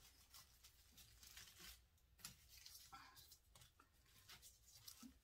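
Near silence with faint, irregular rustling and clicking as artificial berry sprigs are pushed into a grapevine wreath.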